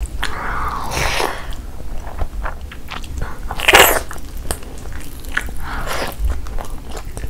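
Close-miked eating: a mouthful of rice, then bites into green tandoori chicken and chewing, with many small mouth clicks between the bites. The loudest bite comes about four seconds in.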